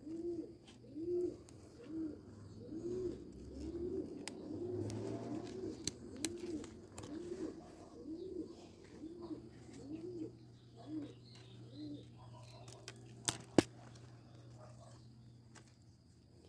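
Dove cooing in a long run of short, low coos, about two a second, stopping a few seconds before the end; a single sharp click follows soon after.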